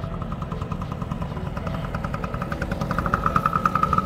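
Yamaha PW50 mini dirt bike's small two-stroke single-cylinder engine idling with a rapid, even putter. It grows louder about three seconds in.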